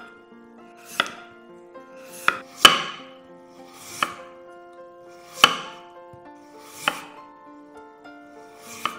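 Chef's knife slicing a peeled raw potato into thin rounds on a wooden cutting board: about seven sharp cuts, one every second or so, each ending with the blade striking the board.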